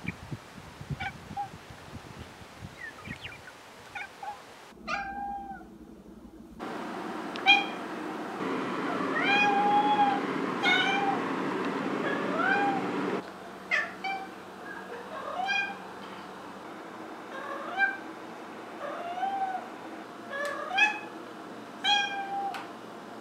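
Maine Coon cat meowing over and over: a long string of short meows that rise and fall in pitch, about one a second, starting a few seconds in.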